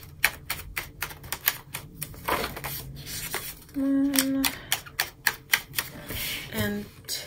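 Paper pages of a discbound Happy Planner clicking and snapping as they are pressed onto the rings' discs and flipped, a quick, uneven run of sharp clicks. A short hummed voice sounds about four seconds in.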